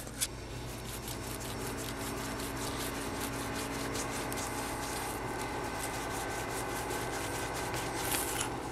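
A cloth shop towel soaked in acetone rubbing back and forth over a painted steel bracket, a steady scuffing over a faint low hum. The single-stage black paint wipes off because it was sprayed without hardener and never cured.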